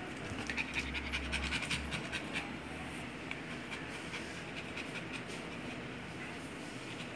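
Pomeranian puppy panting quickly, with mouth open and tongue out, busier in the first couple of seconds and fainter after.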